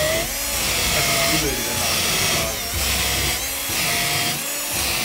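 A power tool's motor running continuously with a whine that wavers up and down in pitch.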